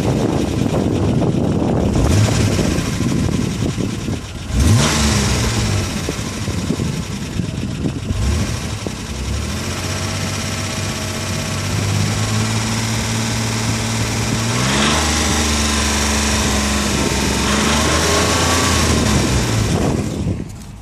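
Mitsubishi 3000GT's V6 engine revved: two quick blips, then held at raised revs, stepped up higher about three-quarters of the way through and let back down near the end. The phone's microphone distorts it on the revs. The engine makes an odd noise that the owner wants identified.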